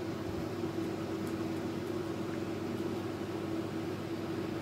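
Ceiling fan running: a steady hum with one constant tone over a soft rush of air.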